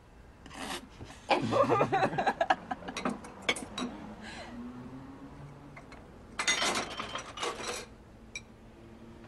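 People laughing in a loud burst about a second in, then a shorter, noisier burst near seven seconds.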